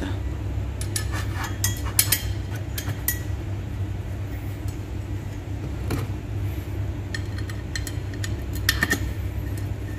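Light metallic clinks and taps from a twin-plate clutch and flywheel assembly being handled by hand at its cover bolts, a cluster in the first three seconds, one about six seconds in and a few more near the end, over a steady low hum.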